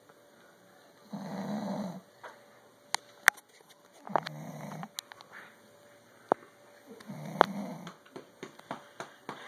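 A man snoring: three low snores about three seconds apart, with several sharp clicks in between.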